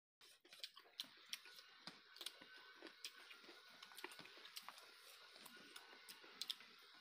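Faint mukbang eating sounds: scattered soft clicks and wet smacks of chewing and of fingers working rice and curry on plates. The sound comes in abruptly just after the start.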